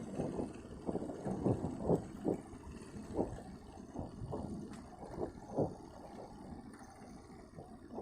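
Strong sea wind buffeting the microphone in irregular low rumbling gusts, a few each second, over a steady low rush.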